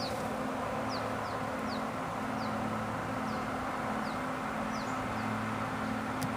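Honeybees buzzing steadily around an opened hive, a low, even hum. A bird's short, falling chirps repeat about once or twice a second over it, and there is a single click near the end.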